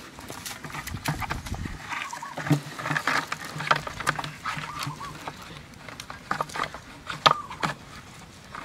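Knocks, clicks and scrapes of a plastic bucket and bamboo pole being handled and tied together, with chickens clucking now and then in the background.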